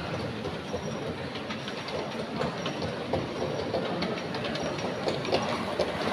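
Model railway trains running on curved track: a steady rolling rumble of the locomotives and wagons with many quick clicks from the wheels, growing busier as the near train passes.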